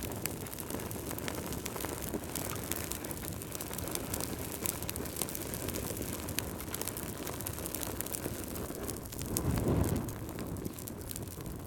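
Wood fire burning in a fireplace, logs crackling with many quick pops over a steady rush of flames. About nine seconds in, a low rushing swell rises and falls away.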